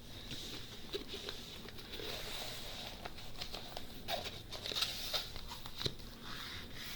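Hands pressing and smoothing a diamond-painting canvas under its plastic cover sheet, with faint irregular crackles and light taps as the air pockets are pushed out.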